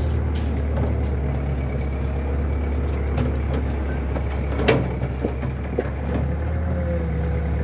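Excavator diesel engine idling steadily, with a sharp knock about two-thirds of the way through and a few lighter clicks.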